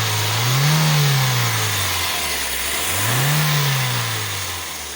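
Toyota 3ZZ-FE 1.6-litre four-cylinder engine revved twice, each time rising quickly in pitch and then sinking slowly back toward idle, the two revs about two and a half seconds apart.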